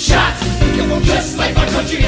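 Hip-hop musical theatre song playing: a steady drum beat under held chords.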